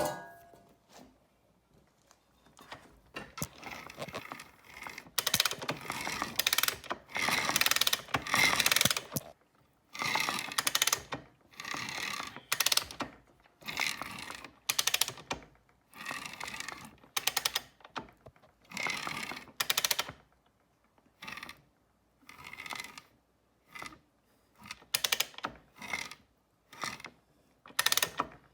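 Repeated short bursts of metallic ratcheting and clattering from hand work on an exposed dirt-bike engine top end around the timing chain, in an irregular rhythm.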